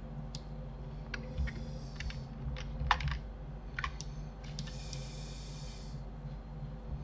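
Computer keyboard keystrokes and mouse clicks, scattered irregular single clicks, the strongest about three seconds in, over a steady low hum.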